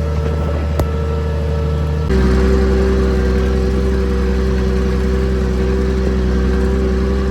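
Tractor engine running steadily while pulling a plough; about two seconds in the sound suddenly becomes louder and deeper and holds there.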